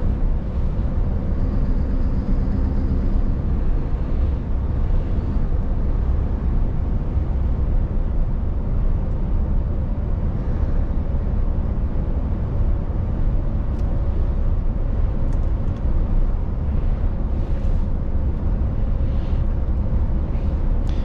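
Scania S770 truck's 16.4-litre V8 running under steady load as the truck drives along a road, heard inside the cab as a steady low rumble mixed with tyre and road noise, with a faint steady hum above it.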